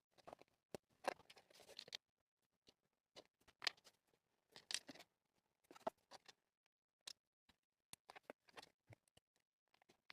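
Faint, irregular clicks and short rustles of small LEGO Technic plastic parts and their packaging being handled, a few sharper clicks standing out among them.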